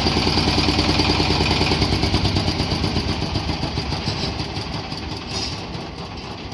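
Engine of a self-propelled corn sheller running steadily with an even pulse, growing gradually fainter over the last few seconds.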